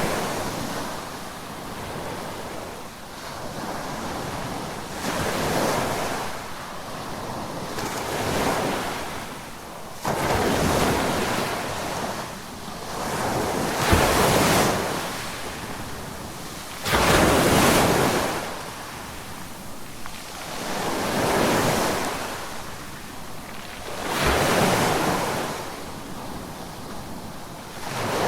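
Ocean waves breaking on a beach shoreline, a loud crash every three to four seconds with the wash of surf between, some starting suddenly. Wind noise on the microphone runs underneath.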